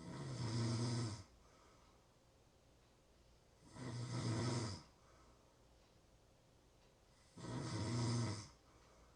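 A sleeping person snoring: three snores, each a little over a second long, coming about every three and a half to four seconds, with quiet breathing gaps in between.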